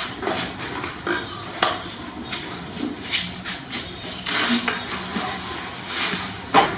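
Kittens scuffling among plastic toys and a plastic-wrapped package: irregular crinkles, rustles and light plastic knocks, the loudest near the end.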